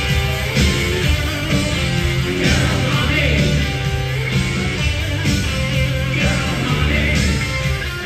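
Hard rock band playing live through a concert PA: electric guitars, bass and drums with a steady beat, and a singer's voice.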